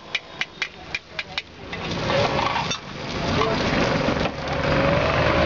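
A metal spatula tapping rapidly on a hot tawa, about five sharp clicks a second, while egg is chopped and fried. About a second and a half in, the tapping stops and loud street noise with voices swells up over it.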